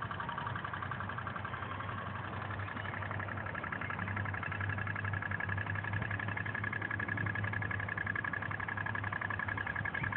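Toy pop-pop (putt-putt) steam boat running, its little steam engine popping in a rapid, even putt-putt that grows a little louder about four seconds in.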